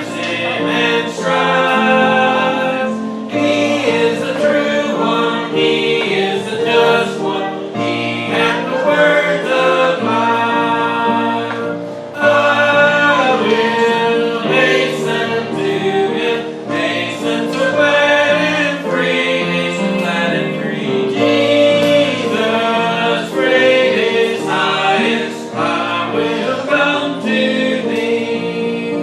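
Church congregation singing a gospel hymn together, many voices in unison and harmony.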